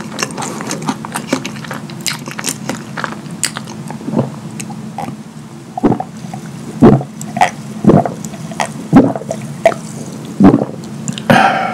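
Close-miked mouth sounds: wet chewing and lip smacking with many small clicks, then loud gulps of a drink swallowed about once a second from a glass mug. It ends with a short breathy burst.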